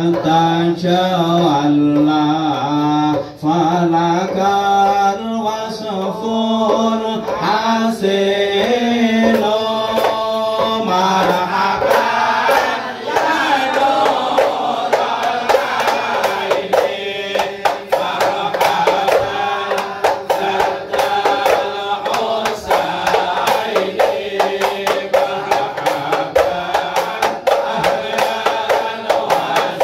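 A group of men chanting sholawat together in ISHARI hadrah style. From about twelve seconds in, hand-struck terbang frame drums join in a fast, dense beat under the voices.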